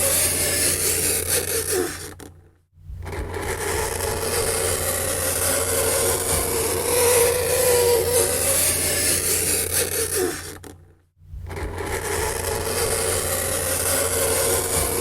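Fingernails scraping across a chalkboard: a continuous grating scrape with a wavering squeal and a steady low hum underneath. It fades out briefly twice, about two and a half seconds in and again near eleven seconds.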